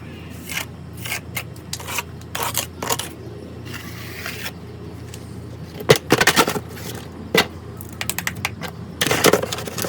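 Scraping and clicking of a tool working pool patch compound across a rough pebble pool surface, in irregular short strokes with busier runs about six seconds in and again near the end.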